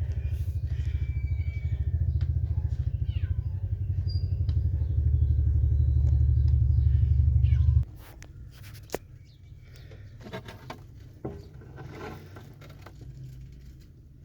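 Cat purring loudly and close up, a steady low rumble that stops abruptly about eight seconds in. Faint clicks and rustles follow.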